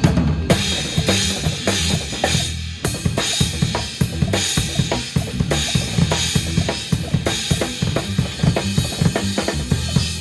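Live jazz-fusion band playing, led by a busy drum kit with kick, snare and cymbals over steady bass-guitar notes.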